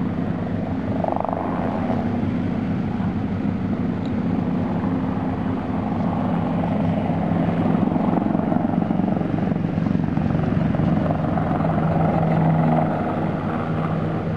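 Eurocopter Tigre attack helicopter flying a display pass overhead: a steady drone from its rotors and twin turboshaft engines. It grows louder past the middle and eases off a little near the end.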